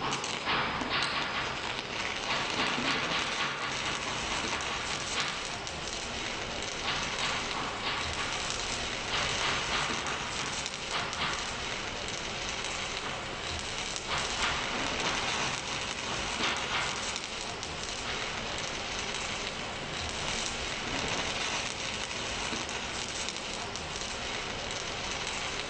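Stick welding arc crackling and sizzling steadily, swelling louder for a few seconds at a time now and then.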